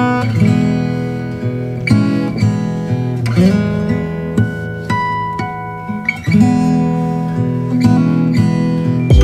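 Background music: acoustic guitar, strummed and picked chords.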